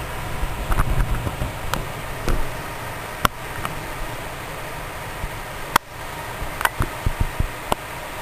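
Heavy rain and wind in a strong thunderstorm: a steady hiss, with gusts buffeting the microphone about a second in and scattered sharp taps through the second half.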